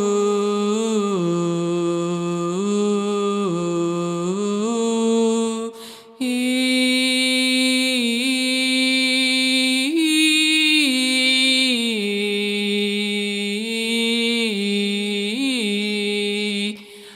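A person's voice sounding a slow wordless melody, holding long tones that step up and down between a few pitches in a chant-like way. There is a breath break about six seconds in and another near the end.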